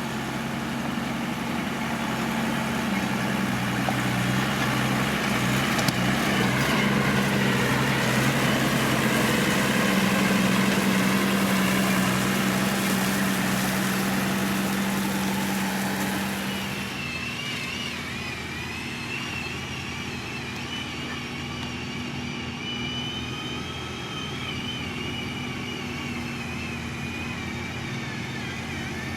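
Diesel engine of heavy road-construction machinery running steadily, louder and noisier for a little over half the time, then easing to a lower level, with a faint wavering high whine after that.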